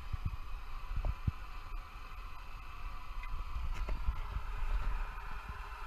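Small gas stove burner hissing steadily under a steel pot in a gimballed stove, with a few dull knocks as the pot lid and the swinging stove are handled.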